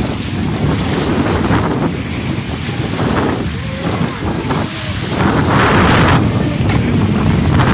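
Radio-controlled speedboat running fast across open water, its motor and hull spray mixed with heavy wind noise on the microphone. It gets louder about five seconds in as the boat runs closer, throwing up spray.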